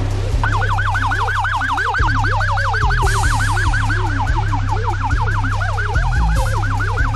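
Police siren on a fast yelp setting, its pitch sweeping up and down about six times a second, starting about half a second in. It is heard over background electronic music with a heavy steady bass.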